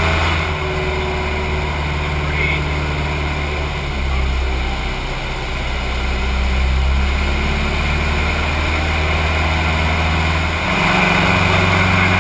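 Single-engine propeller plane's engine and propeller drone, heard from inside the closed cockpit over steady air hiss. The pitch shifts a few times during manoeuvres and steps up louder near the end as power increases.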